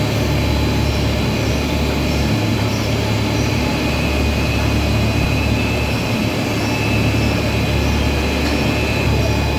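BOPP film printing and lamination line running, a steady machine drone with a strong low hum and faint, steady high-pitched whines.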